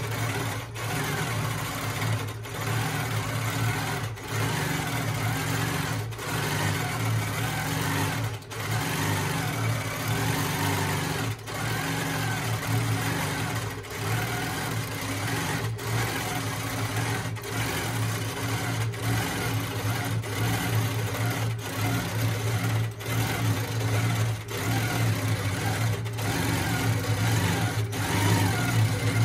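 Longarm quilting machine running and stitching continuously while free-motion quilting feathers in its stitch-regulated cruise mode: a steady motor hum with brief dips every second or two.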